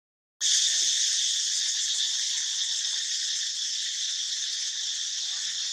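Steady high-pitched chorus of insects, dropping out for a split second at the start.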